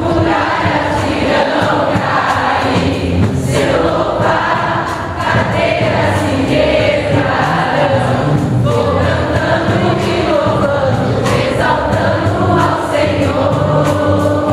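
A congregation of men, women and children singing a worship song together, with hands clapping along.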